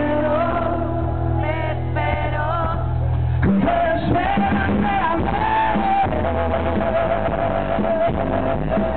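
Live rock band playing, with a male lead singer singing over guitars. About three and a half seconds in the accompaniment changes, and the singer then holds one long note.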